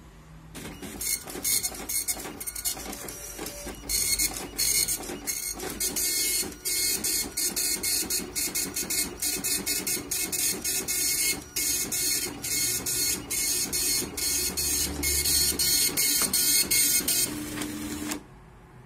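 Epson LQ-2190 24-pin dot matrix printer printing a test page. The print head rattles across line after line in a fast, high-pitched buzz, broken by short pauses between passes. It starts about half a second in and stops just before the end.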